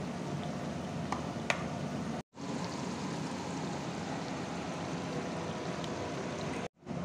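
Chicken karahi sizzling and bubbling in the pan: a steady hiss with a couple of faint clicks about a second in. The sound drops out briefly twice, at about two seconds and near the end, where the footage is cut.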